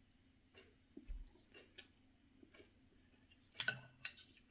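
Faint eating sounds: soft ticks of chewing a mouthful of rice, then a few sharper clicks near the end as a fork and spoon work at mussels in their shells.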